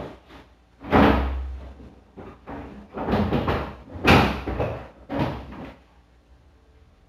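The plastic basket of a refrigerator's pull-out freezer drawer bumped and scraped while it is wiped with a cloth: a string of knocks and rubs, the loudest with a dull thump about a second in and another about four seconds in, dying away near the end.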